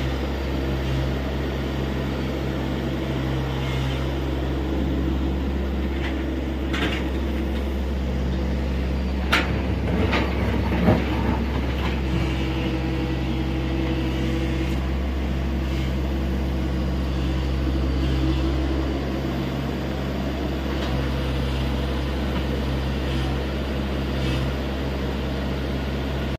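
Tata Hitachi EX70 excavator's diesel engine running steadily under work, with a few sharp metallic knocks about nine to eleven seconds in.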